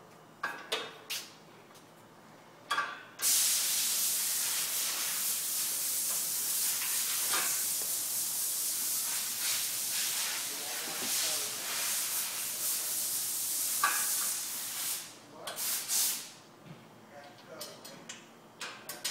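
A loud, steady hiss that starts abruptly about three seconds in and dies away about fifteen seconds in. Short knocks and clicks before and after it, from the metal display parts being handled.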